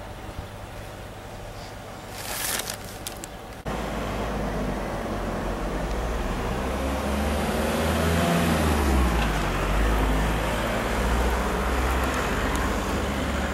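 Street traffic: a motor vehicle passes, its engine note rising and falling about halfway through over a steady low rumble. The sound jumps suddenly louder a few seconds in.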